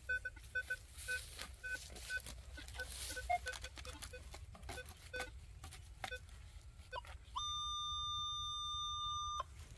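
Metal detector being swept low over the ground, giving faint short beeps at two pitches among the rustle of vegetation. About seven seconds in it sounds a steady, held tone for about two seconds that cuts off suddenly: the detector's response to a buried metal target, a good signal.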